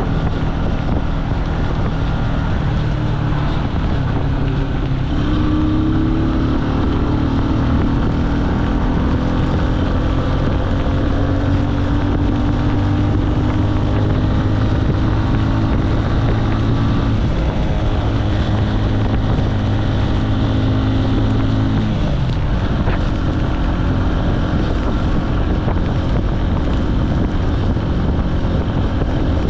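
Jialing 150 cc single-cylinder motorcycle engine running under way, with wind noise on the microphone. The engine pitch rises about five seconds in, slowly sags, then falls sharply a little past twenty seconds as the throttle comes off.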